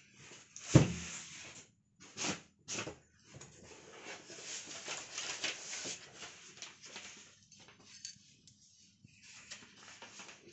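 Cardboard TV box and foam packing being handled. A heavy thump comes about a second in, then two sharper knocks, then a few seconds of cardboard scraping and rubbing. Quieter rustles follow.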